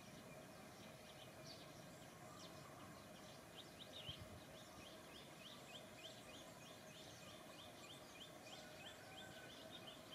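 Faint outdoor ambience: a rapid series of short high chirps, about three a second, starting a few seconds in, over a low steady hum, with one soft thump about four seconds in.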